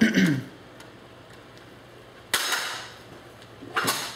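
Metal typewriter parts being handled and set down: a knock at the start, a longer clatter about two and a half seconds in that fades over about a second, and another sharp knock near the end.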